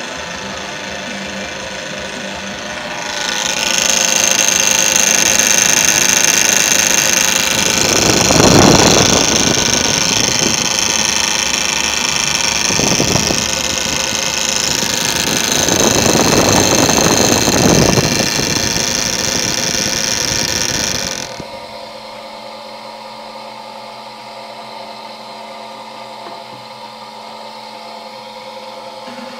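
Home-built rotor-balancing rig spinning a wheel on its shaft: a loud, steady high-pitched whine starts about three seconds in, with two louder rushing swells, then cuts off suddenly about two-thirds of the way through, leaving a quieter steady hum.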